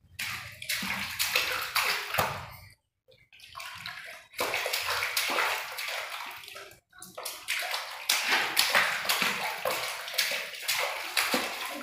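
Water splashing and sloshing in a small plastic basin as a baby slaps it with its hands. The splashing comes in busy runs of quick slaps, with a pause about three seconds in and a brief break near seven seconds.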